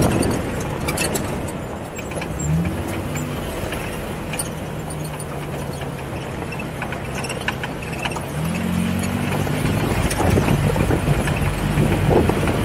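Jeep engine running at low speed while rock crawling, revving up briefly twice, with scattered knocks and crunching from the tyres working over rock.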